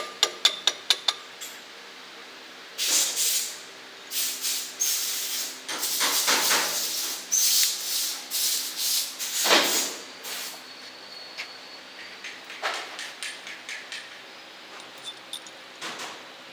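Metal parts of a wood lathe's follow rest and centering set being handled and fitted: a series of rough scraping and rubbing strokes for several seconds, with scattered clicks and knocks. A faint steady hum runs underneath.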